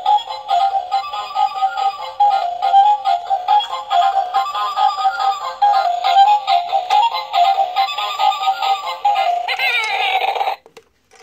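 Electronic tune from a light-up Angry Birds-style toy bird's small built-in speaker: a thin, repeating beeping melody. Near the end it changes to a short warbling sweep, then cuts off suddenly.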